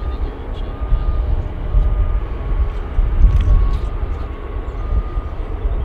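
Airbus A350-941's Rolls-Royce Trent XWB jet engines running at taxi power: a steady low rumble. A faint beeper sounds about once a second, like a vehicle's reversing alarm.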